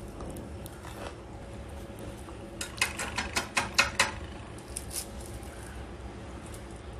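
A crisp deep-fried spinach pakora being broken apart by hand: a quick run of about ten sharp crackles from the fried gram-flour batter, about three seconds in, lasting a second and a half.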